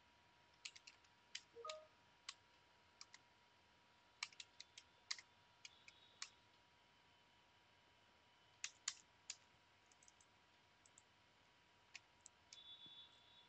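Faint, irregular clicks of computer keyboard keys as a terminal command is typed, with a faint steady tone underneath.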